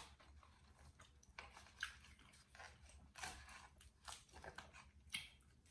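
Faint eating sounds: chewing, with scattered soft clicks and scrapes of food being picked at in a foam takeout box.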